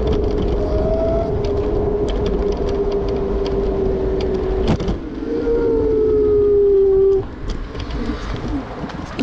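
Electric scooter's motor whine over the rumble of its wheels rolling on pavement, with scattered clicks. About five seconds in the whine gets louder, sags slowly in pitch, then cuts off suddenly about two seconds later.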